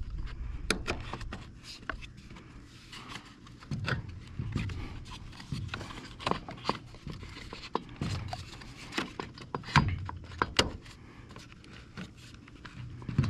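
Irregular clicks, knocks and scrapes of trimmer engine parts being handled as the top cover is fitted back on over the spark plug.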